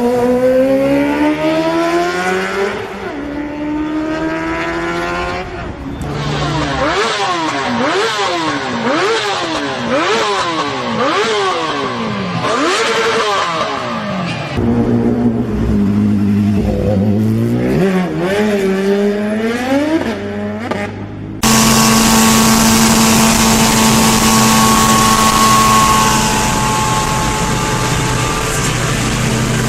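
A string of motorcycle engine clips cut together. First an engine accelerates with rising pitch. Then the throttle is blipped up and down rapidly over and over, then revved again. About two-thirds through, a sudden cut brings a steady engine note over hiss.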